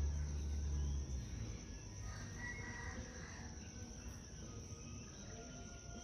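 Steady high-pitched insect chorus, with a low rumble that stops about a second in and a short bird call about two and a half seconds in.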